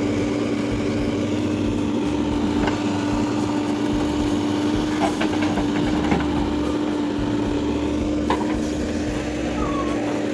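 A motor running at a steady speed, with a constant hum and a few light clicks along the way.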